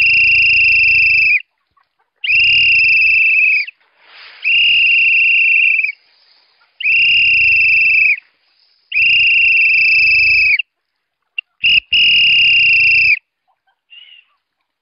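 A whistle blown in six long, steady blasts of the same pitch, each about a second and a half with short gaps between, with a brief toot just before the last. It is a call to a flock of chickens converging on scattered grain.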